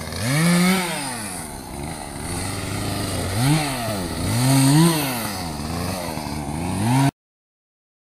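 Two-stroke chainsaw revving up and down several times in quick throttle bursts, cutting off suddenly about seven seconds in.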